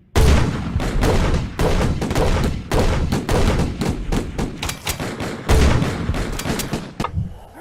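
A dense, irregular barrage of loud bangs and cracks, many in quick succession, which stops abruptly about seven seconds in.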